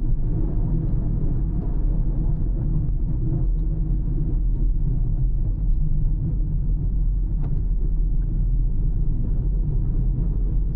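Steady low rumble of a car driving along the road, engine and tyre noise without change in pace. One faint click about seven and a half seconds in.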